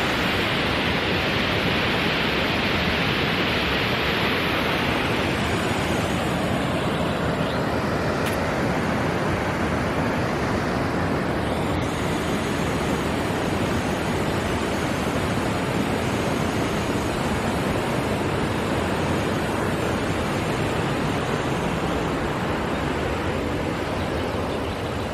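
Waterfall on the River Tees: a steady, even rush of white water.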